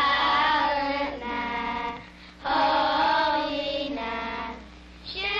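A group of schoolchildren singing a Christmas carol together. Two sung phrases with a short breath between them, and a third starting near the end.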